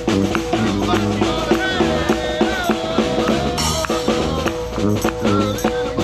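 Live New Orleans-style street brass band music: a sousaphone bass line and a snare drum playing a steady groove, with a man's voice singing over them through a microphone.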